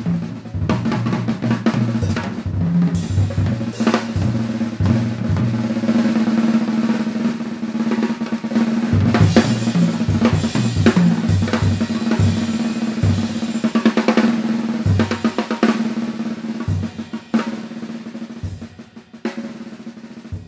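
Swing jazz with the drum kit to the fore, busy snare rolls and bass drum kicks, over piano and bass. It gets quieter over the last few seconds.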